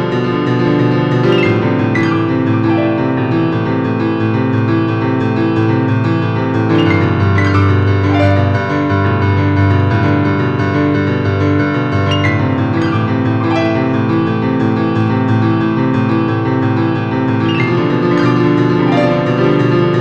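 Background piano music: slow, sustained chords that change every second or few.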